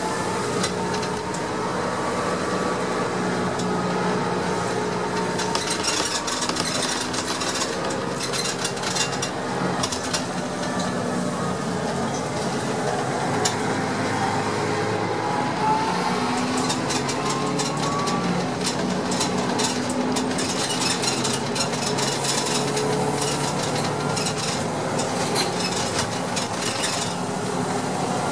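Heuliez GX 417 city bus heard from inside the passenger cabin while driving: engine and drivetrain running steadily, with a whine that slowly rises and falls in pitch, and light rattling from the interior.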